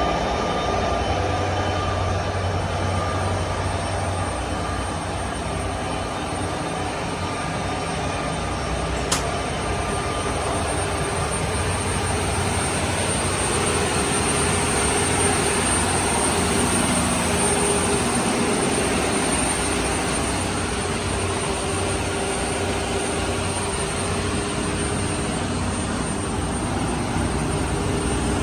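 Steady drone of running diesel machinery in a boat's engine room, with a thin high whine over it. A single sharp click about nine seconds in.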